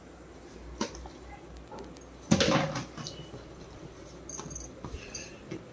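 Plastic storage buckets and lids being handled: a few light knocks and clatters, the loudest a short clatter about two seconds in, as a plastic lid is fitted onto a bucket.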